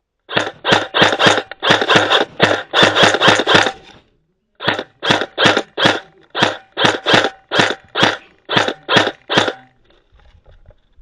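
Airsoft gun firing single shots in quick succession, about three a second, in two runs with a short pause between.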